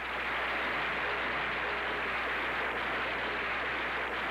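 Large audience applauding, a steady even clatter of many hands.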